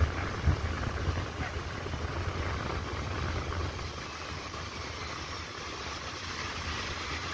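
Ocean surf washing and breaking, with wind buffeting the microphone in a low rumble that is strongest in the first few seconds, with a couple of gusty bumps near the start.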